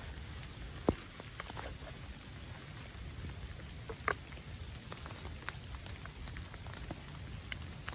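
Light rain falling steadily, with scattered sharp ticks; a louder tick comes about a second in and another about four seconds in.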